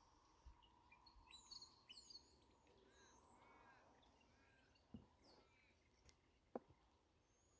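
Faint background birdsong: a flurry of short chirping, sweeping calls, mostly in the first half, over quiet outdoor ambience. There are two brief soft knocks later on.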